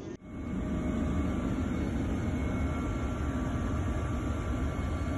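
Steady low drone of an aircraft's engines heard from on board, with a few faint steady whining tones over the rumble; it starts abruptly just after the beginning.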